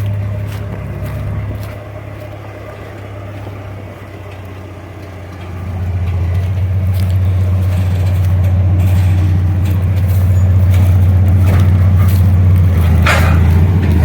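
A vehicle engine running with a steady low drone, rising in level about five and a half seconds in and staying louder.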